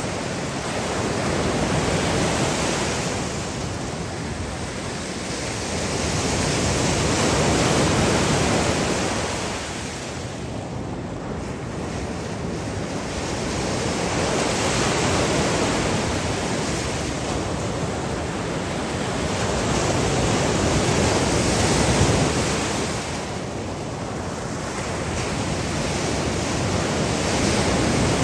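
Surf: waves breaking and washing up a sandy beach, a steady rush that swells and eases about every six or seven seconds as each set of waves comes in.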